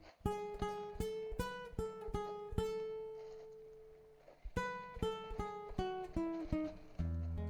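Acoustic guitar playing a plucked single-note melody, two or three notes a second: a run of notes, a long note left to fade, then a falling run. Deeper bass notes join near the end.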